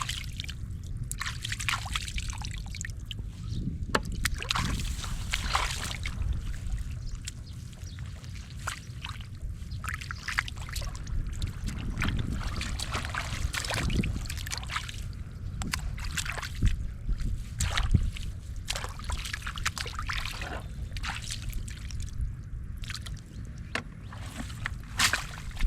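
Muddy water sloshing and splashing in many short, irregular splashes as hands grope through it for fish.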